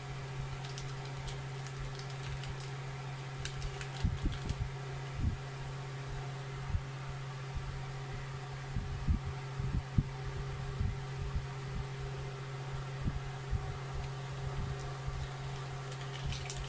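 Small plastic pressure-washer lance parts and rubber seals being handled on a tabletop: scattered soft knocks and clicks, with crinkling of the plastic seal bag early on and again near the end, over a steady low hum.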